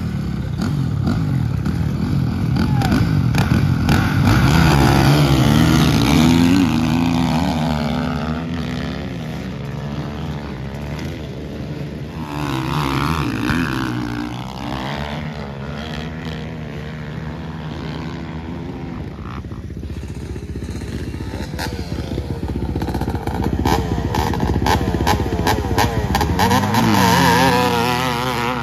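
Dirt bike engines revving hard and accelerating, one bike after another launching up a steep dirt hill. The engine note rises and swells in three main surges, then fades as each bike climbs away.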